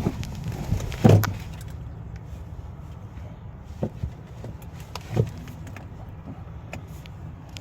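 A few dull knocks and clicks from handling parts of a car, the loudest about a second in and two more near the middle, over a steady low rumble.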